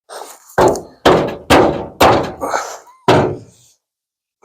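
Five heavy hammer blows on metal, the first four about half a second apart and a last one after a pause, each ringing briefly: bent front-end sheet metal being knocked back into shape.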